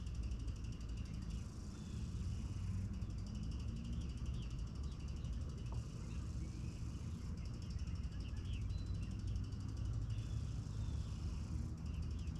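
Outdoor lake ambience: a steady low rumble, a faint fast mechanical ticking in long stretches, and scattered short chirps.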